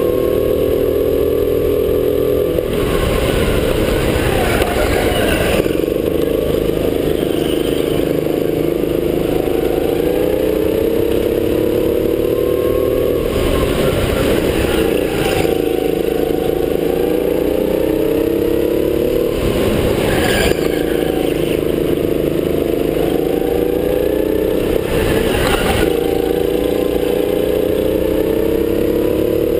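Racing kart engine heard from the driver's seat, its pitch repeatedly climbing under throttle and dropping off, lap after lap. Several short stretches of harsh scraping noise come where it slows for the turns.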